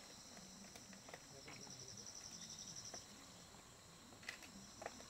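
Insects trilling on a steady high note, with a faster, pulsing trill from about one and a half to three seconds in. Two short clicks come near the end.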